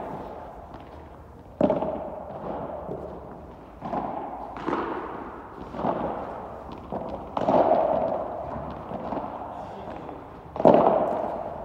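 A padel ball being hit back and forth in a rally: about half a dozen sharp pops of racket on ball and ball on court, each with a long echo under the court's fabric dome.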